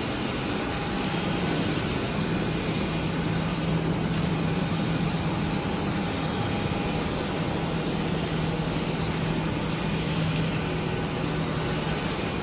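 Airbus A380-800 in flight overhead, its four Rolls-Royce Trent 900 turbofan engines giving a steady jet rumble with a low hum.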